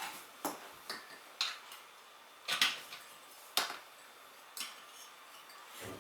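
Metal hand tools clinking and clacking against metal during a hand tyre change on a spoked motorcycle wheel: sharp single clinks about once a second, at uneven intervals.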